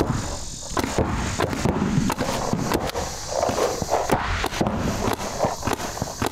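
Paintball markers firing irregular strings of sharp shots, several a second at times, as players trade fire in a one-on-one drill.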